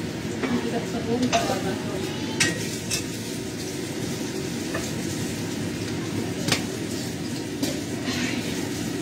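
Food stir-frying in a pan over a gas burner: a steady sizzle while a metal utensil stirs it. About five sharp clanks of the utensil against the pan are scattered through.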